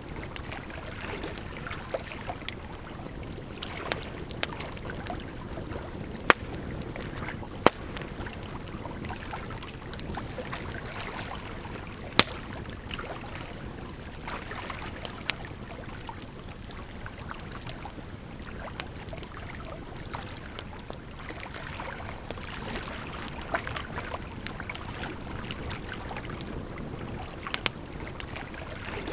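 Wood fire crackling, with irregular sharp pops from burning logs, over a steady rush of running water.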